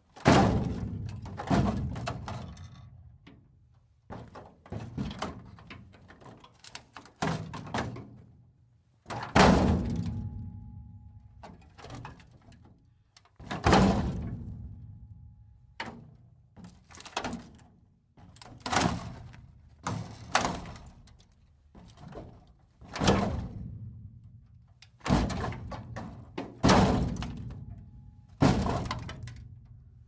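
Metal breaking apart: a long string of heavy crashing, crunching hits, one every one to two seconds, each dying away with a short rumbling tail. After a couple of the hits a faint ringing tone lingers.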